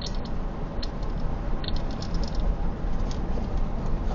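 Steady road and engine noise of a car driving, heard from inside the cabin: a low rumble with a few faint light clicks.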